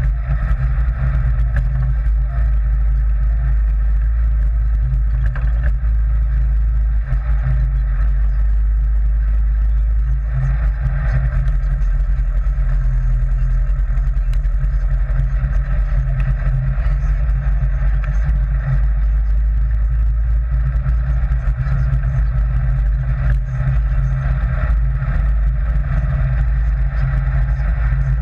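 Sand rail (dune buggy) engine running steadily, a loud low drone that holds constant without revving.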